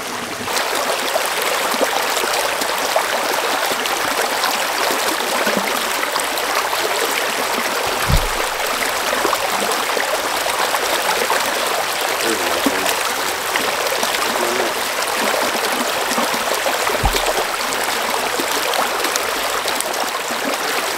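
Small rocky creek running over stones in a shallow riffle: a steady rush and babble of water. Two dull low thumps, several seconds apart.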